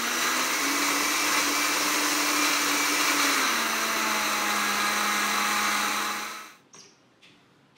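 Countertop blender running, puréeing ripe plantain slices with milk and egg. The motor's hum steps up in pitch about a second in, drops lower a couple of seconds later, and the motor cuts off suddenly near the end, followed by a couple of faint clicks.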